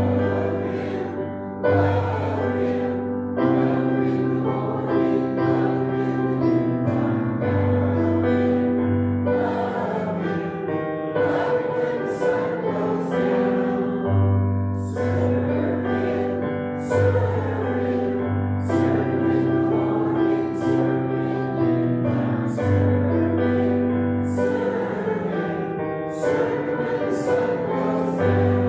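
A hymn sung by voices with keyboard accompaniment: slow held chords, the bass note changing every second or two.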